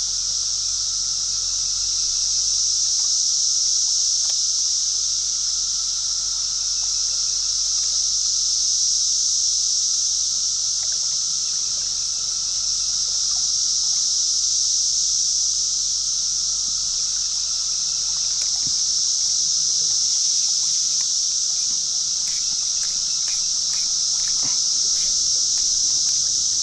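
Steady high-pitched drone of a summer insect chorus, with a fainter steady tone below it and a few light ticks near the end.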